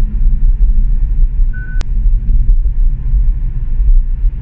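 Steady low road and tyre rumble inside the cabin of a Hyundai Kona Electric coasting at about 35 mph under gentle regenerative braking, with no engine sound. A brief beep and a sharp click come a little under two seconds in.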